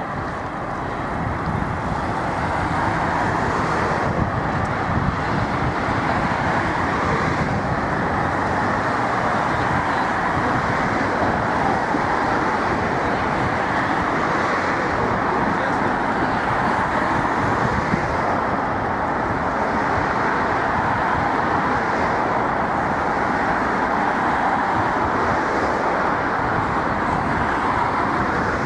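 Steady city road traffic noise, a continuous rumble of passing vehicles with no single event standing out.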